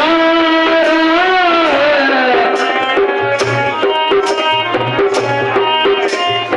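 Indian-style music: a melody line that bends and glides in pitch, with tabla-like drumming whose low strokes come in regularly from about three seconds in.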